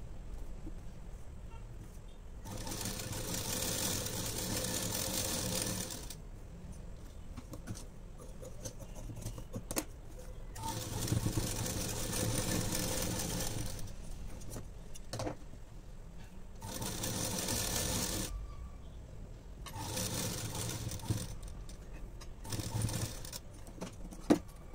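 Domestic sewing machine running in five short bursts of stitching along a blouse seam, stopping between runs as the fabric is turned. A sharp click near the end.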